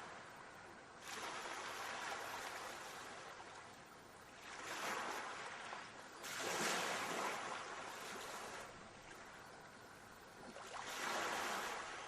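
Sea waves washing onto a shore in four surges, the loudest about halfway through, with a steady wash between them.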